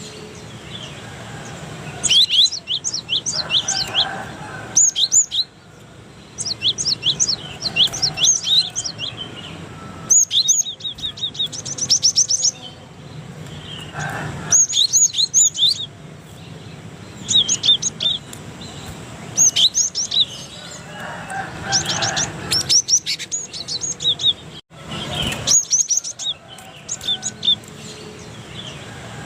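Cinereous tit (gelatik batu) singing: short bursts of rapid, high chirps and trills, a new phrase every couple of seconds.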